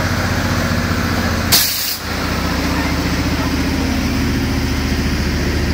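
Heavy vehicle's engine idling steadily, with a short sharp hiss of air brakes about one and a half seconds in.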